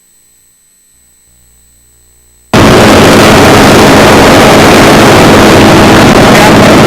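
Faint hum, then about two and a half seconds in a racing aircraft's piston engine cuts in suddenly, very loud and close, and runs steadily at full recording level.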